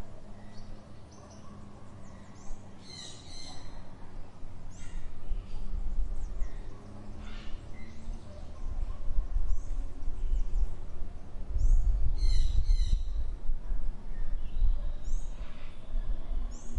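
Outdoor garden ambience: small birds chirping in short, repeated high calls over a low rumble that swells after about five seconds and is loudest from about twelve seconds in.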